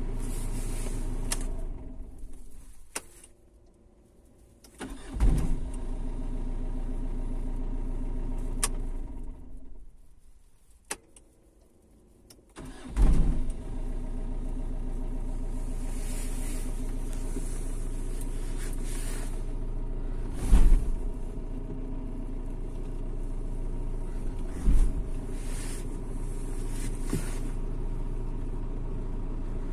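Mitsubishi Shogun 3.2 DI-D four-cylinder turbodiesel idling. It is switched off and restarted twice, each start with a loud clunk, and two more single clunks come while it idles.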